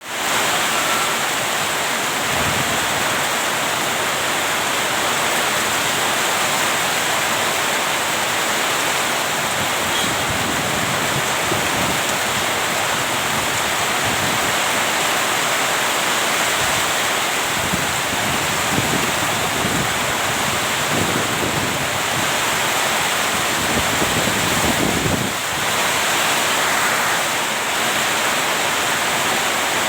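Heavy rain pouring steadily: a dense, even hiss, with a few low rumbling swells in the second half.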